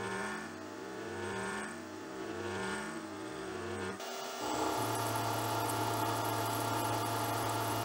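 Milling machine cutting aluminium. First a large cutter takes a chamfer on a block, its tone wavering and swelling about once a second. After a break about four seconds in, a small end mill cuts a slot, with a louder, steady tone and a high hiss.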